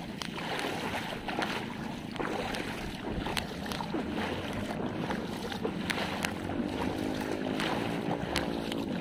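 Floodwater sloshing and splashing in irregular bursts as someone wades along a flooded road, with wind buffeting the microphone. About six and a half seconds in, a motor's steady drone joins.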